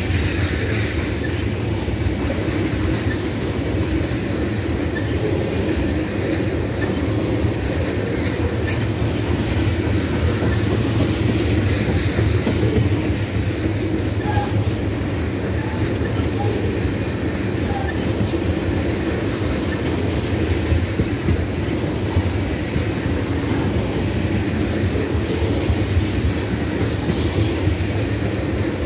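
Freight train of tank cars rolling steadily past: the continuous low rumble of steel wheels on the rails.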